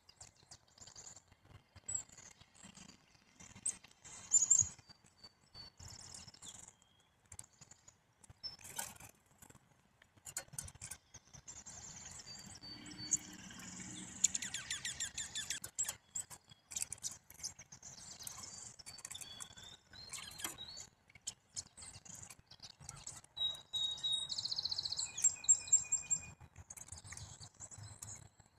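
Small songbirds chirping and calling in short high notes, with a buzzy run of rapid notes around the middle and a fast high trill a little before the end. Scattered sharp clicks run among the calls.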